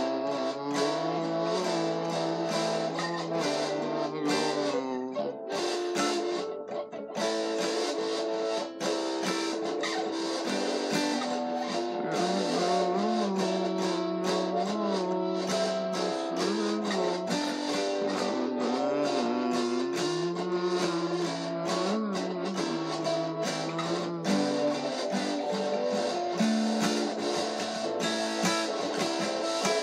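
Acoustic guitar being played, notes and chords changing continuously.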